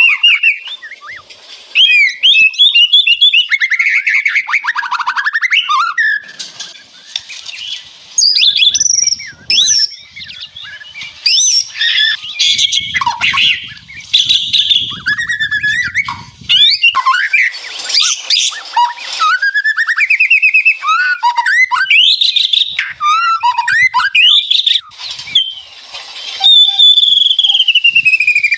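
White-rumped shama (murai batu) singing a long, varied song. Its phrases mix sweeping whistles with fast rattling trills, the 'ngeretek' crackle, and have short pauses between them.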